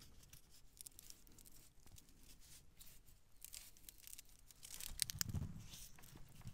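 Green hazel rod being twisted into a withy: faint crackling and creaking as its bark and fibres part without snapping, louder for a moment about five seconds in.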